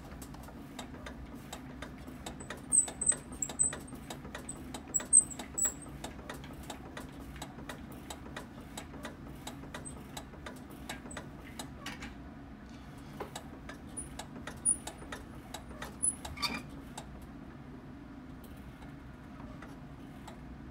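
Leica CM1850 cryostat being worked through its cutting strokes to trim an OCT-embedded sample: a run of light mechanical clicks, about two or three a second, that thins out after about twelve seconds, over a steady low hum. A few faint high squeaks come a few seconds in and again near the end.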